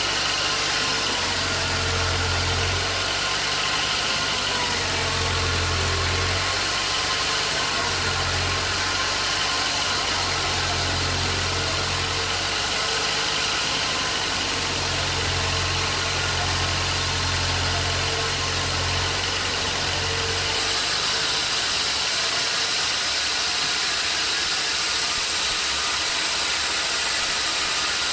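Sawmill machinery running steadily with a constant hiss. A low hum cuts in and out every few seconds and stops for good about two-thirds of the way through.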